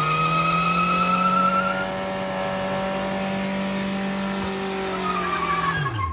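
Toyota Previa van's engine held at high revs during a burnout, its pitch creeping slightly higher. Just before the end the revs fall away sharply as the throttle is released.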